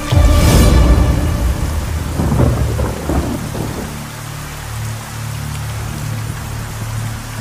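A thunderclap cracks right at the start and rumbles away over a steady hiss of heavy rain. A low steady hum comes in about four seconds in.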